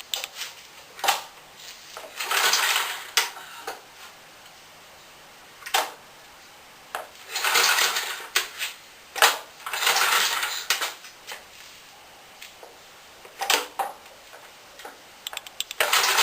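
Small go-kart engine cranked on its pull-start in about four separate pulls that never catch into running, with metal clanks and knocks between them. It is getting spark and fuel but will not start.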